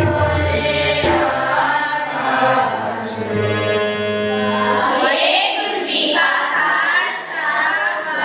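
Children's group singing a Sikh shabad (kirtan) in Raag Basant, accompanied by harmonium and tabla. The low accompaniment stops about a second in and a held chord with sustained voices follows. From about five seconds in the voices go on alone, unaccompanied.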